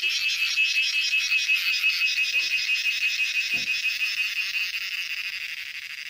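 A male cicada singing from a tree trunk: a loud, rapidly pulsing buzz made by its abdominal tymbals buckling, its mating call. The buzz slowly fades over the last couple of seconds.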